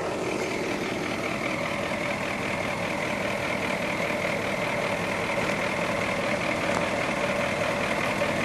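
Vehicle engine running steadily, with a constant mix of engine hum and road noise and no sudden events.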